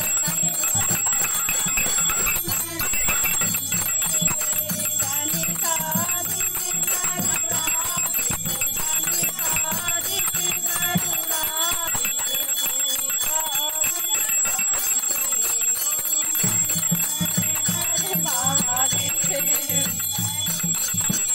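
A small hand bell rung without pause for aarti, with women singing the aarti in chorus. A low beat runs under it and stops for a few seconds midway.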